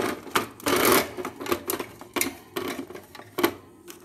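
Irregular clattering and rattling of hard objects being handled while feeding a hamster, a quick run of sharp clicks with the loudest, densest rattle about a second in.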